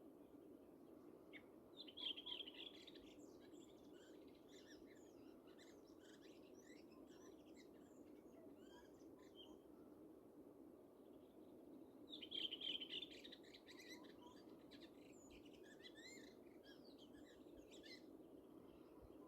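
Faint dawn chorus of several songbirds singing and chirping at once, with two louder song phrases, one about two seconds in and one about twelve seconds in, over a steady low hum.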